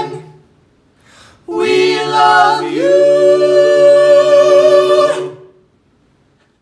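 Three voices singing a cappella in close harmony: a short sung note dies away at the start, then about a second and a half in they come in on a chord that moves up into a long held final chord, which stops about five seconds in.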